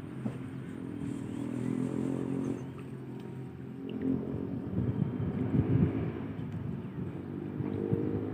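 A small engine running steadily, a low hum with a few short knocks about five to six seconds in.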